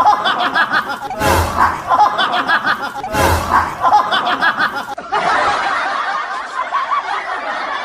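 Canned laughter sound effect: a crowd laughing, with the same clip restarting twice in the first few seconds before a steadier stretch of laughter.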